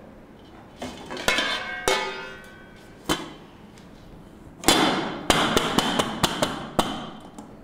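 Stainless-steel plates clank together with a metallic ring as one plate is brought over the other and turned. Then comes a loud knock and a quick run of about seven taps as hands pat the upturned steel plate.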